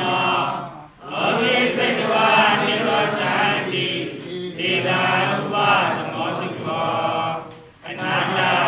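Voices chanting in rhythmic phrases, with short pauses for breath about a second in and again near the end.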